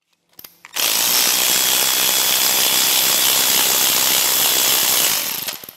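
Cordless electric ratchet running steadily on a bolt of a V8's intake manifold, starting just under a second in and dying away near the end.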